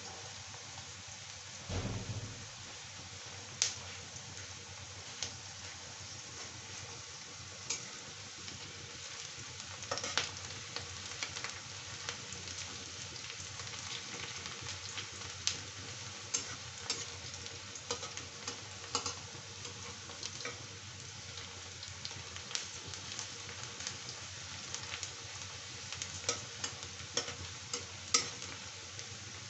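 Sliced onions sizzling in hot oil in a kadhai: a steady frying hiss with scattered sharp taps and scrapes of a spatula stirring them against the pan, and a low thump about two seconds in.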